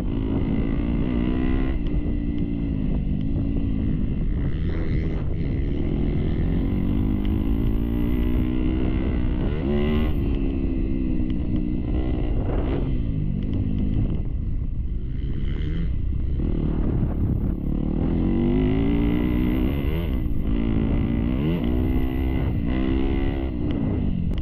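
Dirt bike engine being ridden hard around a motocross track. Its pitch rises and falls over and over as the throttle is opened and shut through the turns and jumps.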